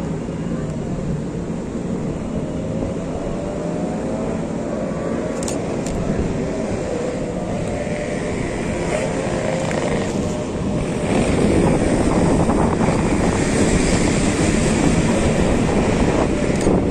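Steady hum of busy road traffic, cars and motorbikes, growing louder about eleven seconds in, with a few short clicks.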